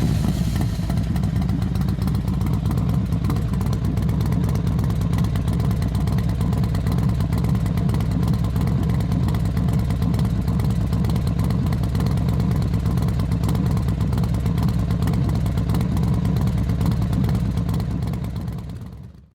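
Honda NC750X's parallel-twin engine running at a steady pace, fading out near the end.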